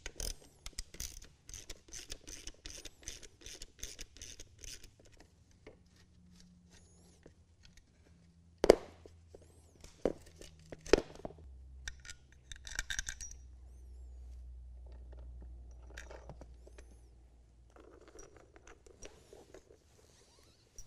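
Hand ratchet clicking in quick runs as the bolts holding an electric cooling-fan motor to its shroud are backed out, then a couple of sharp metal knocks and some scraping as parts and tools are handled.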